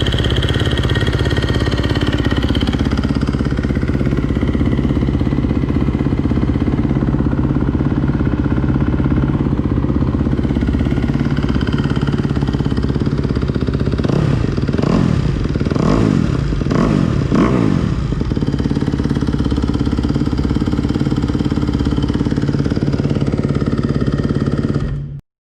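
2021 Kawasaki KX250's single-cylinder four-stroke engine idling on its first start after the build. About halfway through it gets a few quick throttle blips, then settles back to idle. The sound cuts off suddenly near the end.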